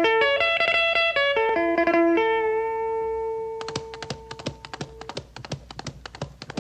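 Soundtrack music: a guitar picking a melody of single notes, then holding one long note while fast clicks come in about three and a half seconds in.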